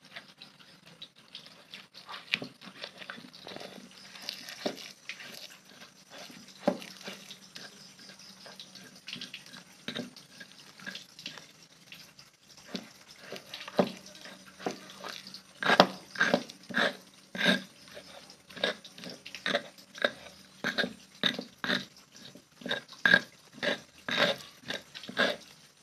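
Stone pestle grinding and knocking a wet peanut and palm-sugar paste in a stone mortar (cobek and ulekan). The strokes are soft and uneven at first. About halfway through they become louder, steady strokes at about two a second.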